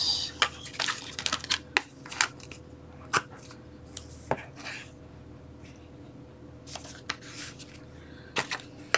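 Adhesive tape being laid along the edges of chipboard and cardstock and pressed down: scattered small clicks and taps, with a few short rasping hisses of tape pulling off, about halfway through and again a little later.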